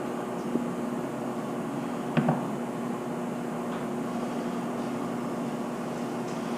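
Steady machine hum with a low, even pitch, and a single knock about two seconds in.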